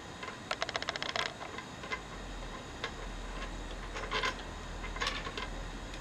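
Light metallic clicks and taps as the bicycle stem's top cap bolt is undone with a hex key and the top cap is lifted off: a quick run of clicks for under a second, about half a second in, then scattered single clicks.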